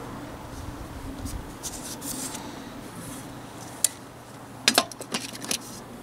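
Handling of a detachable amber warning beacon and its coiled cable: light rubbing, a sharp click about four seconds in, then a quick cluster of knocks and clicks as the beacon's base is set down on the tractor's metal rear bracket.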